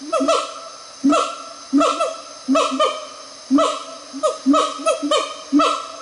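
Siamang calling: a run of loud, short, resonant calls about two a second, each starting sharply and dropping briefly in pitch, made with its inflatable throat sac.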